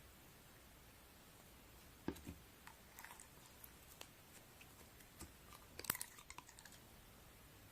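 Near silence broken by scattered faint clicks and taps, with a quick run of them about six seconds in.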